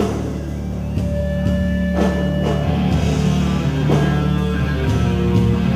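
Hardcore band playing live and loud through a PA: distorted guitars holding long notes over heavy bass, with drum hits about once a second.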